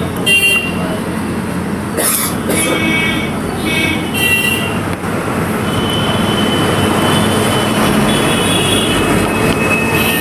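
Road traffic running past: a steady rush of engines and tyres with several short horn toots. A steady high tone joins in from about six seconds in.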